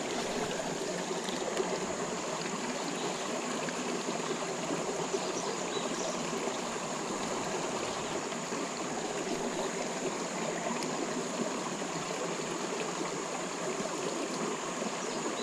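Creek water flowing and trickling steadily, an even rushing sound.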